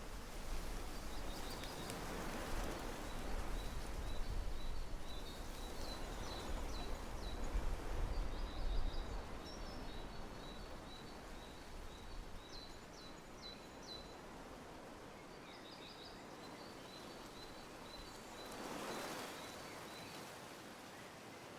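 Quiet background noise with faint high chirps in quick runs, like small birds calling. A soft whoosh comes near the end.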